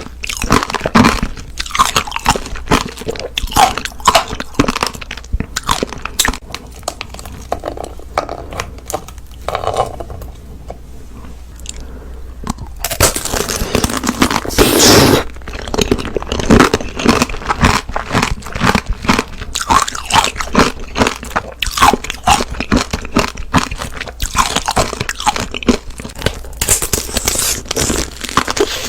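Close-miked eating: crunchy bites and chewing, a rapid run of sharp crunches with a quieter stretch of chewing in the middle and a loud burst of crunching about halfway through.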